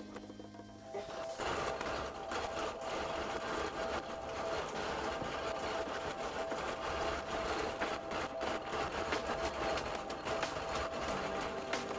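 Bernina Q24 longarm quilting machine stitching under Q-matic computer control: a steady motor whine with a fast needle clatter, starting about a second in as a music cue fades.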